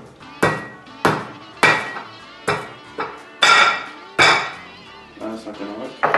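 Metal kitchen utensils clattering in a drawer being rummaged through. It is a series of sharp clinks and knocks, roughly one every half-second, each ringing briefly.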